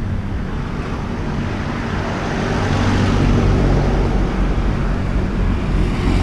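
Small motorbike engine running steadily, with wind noise on the microphone.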